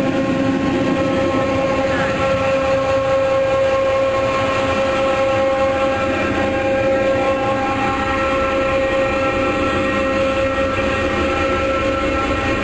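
Drilling rig machinery running steadily: an engine's rumble under a steady, high whine.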